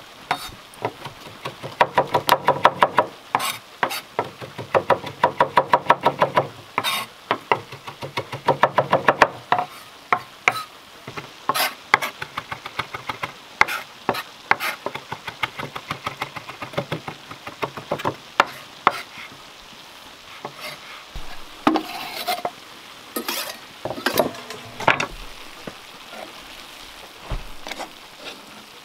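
A large knife chopping fresh herbs on a wooden cutting board: a fast, even run of knocks of the blade on the board, then slower, scattered chops.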